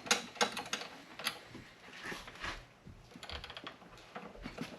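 Small metal bolts clicking and clinking as they are handled: a quick run of light clicks at first, then scattered ones.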